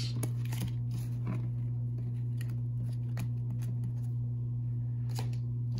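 Baseball cards being handled and set down on a tabletop, giving a few light clicks and taps over a steady low hum.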